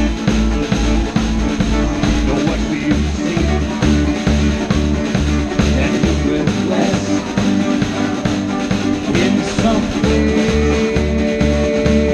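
Live folk-rock band playing an instrumental passage: strummed acoustic guitars and bass over a steady kick-drum beat about twice a second. A long held note comes in about ten seconds in.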